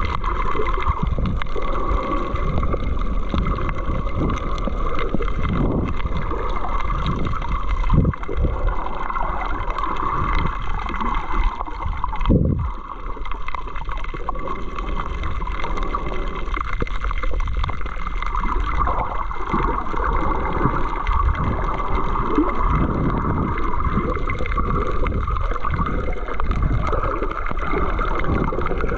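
Muffled underwater water noise picked up by an action camera just below the surface: steady sloshing and gurgling with a low rumble, and a couple of louder knocks.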